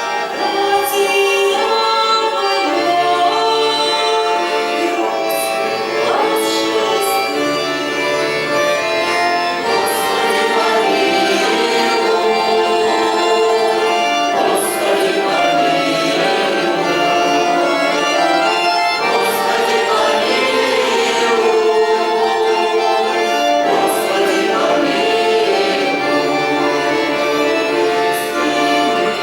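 Russian folk choir singing with instrumental accompaniment, a full, sustained chorus that runs without a break.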